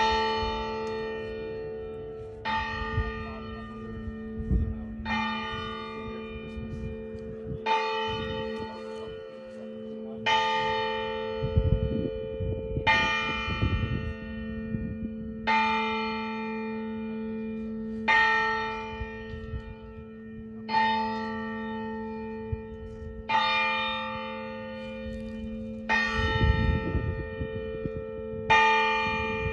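Church bell tolling slowly before a memorial service: twelve strikes about two and a half seconds apart, each ringing on under the next with a long, steady hum.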